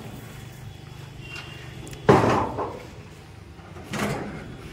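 Steel shipping-container cargo door being unlatched and opened: a loud metallic bang about two seconds in, with a ringing tail, then a lighter clunk about two seconds later.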